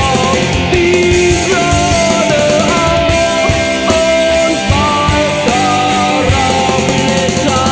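Loud punk-rock band recording playing: distorted guitars and drums under a held melodic lead line that bends between notes.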